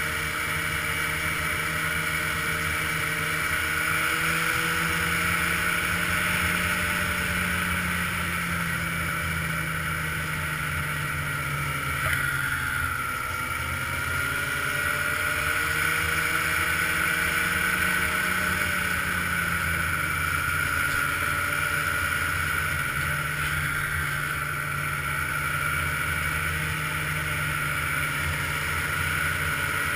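Ski-Doo touring snowmobile's engine running at trail-cruising speed. Its pitch drops about twelve seconds in as the sled slows, climbs back a few seconds later, and dips slightly once more near twenty seconds.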